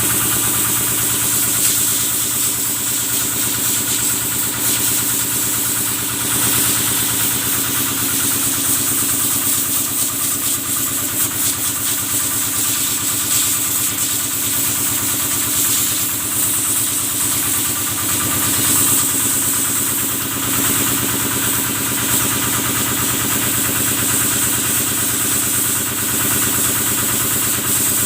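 Kubota engine driving the water pump of a cattle-washing sprayer, running steadily at a constant speed, with a steady high hiss over it.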